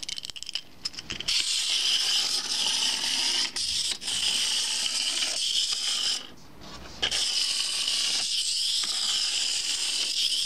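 Tomy Thomas the Tank Engine clockwork toy: about a second of clicking as it is wound, then its wind-up motor runs with a steady high whirring buzz. The buzz breaks off for under a second about six seconds in and then carries on.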